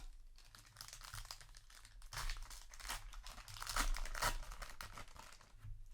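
Plastic trading-card booster pack wrapper crinkling as it is handled and torn open, loudest in the middle.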